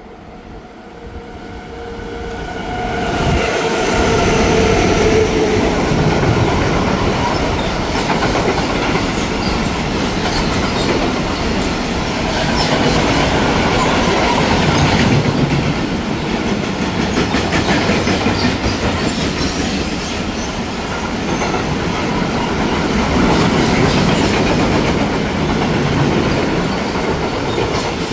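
Freight train passing through at speed. The sound builds over the first few seconds as it approaches, then stays loud as the wagons roll by, a dense steady noise full of repeated clicks from the wheels over the rail joints.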